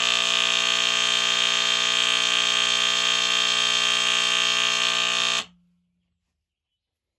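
ESL 206 smoke alarm's mains-powered AC horn sounding a loud, steady, continuous alarm tone, set off by a smoke test. It cuts off abruptly about five and a half seconds in, leaving a brief low hum.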